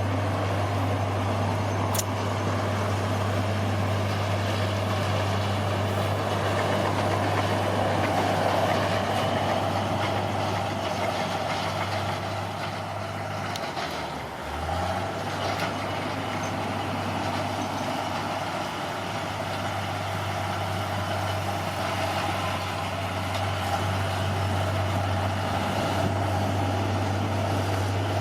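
Heavy earthmoving machine's diesel engine running steadily under work. The engine note drops briefly about halfway through, then picks back up. There is one sharp click about two seconds in.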